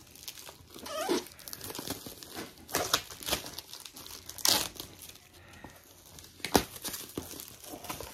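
Clear plastic shrink-wrap being torn and peeled off a boxed diamond painting kit, crinkling in irregular rustles, with sharper crackles about four and a half and six and a half seconds in.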